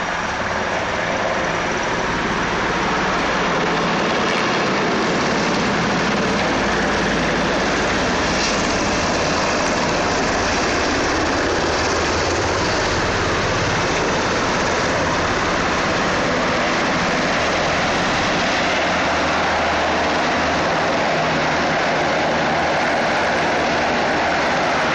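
Military helicopter flying low overhead, its rotor and engine noise a loud, steady rush that grows a little louder over the first few seconds.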